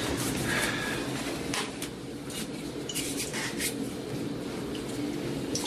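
Light clicks and clinks of small hard objects being handled and set down on a bathroom counter, scattered irregularly, over a steady low room hum.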